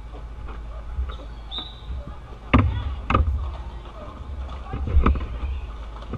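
Roller derby rink noise: a steady low rumble with faint voices, broken by three sharp thumps, two close together around the middle and one near the end.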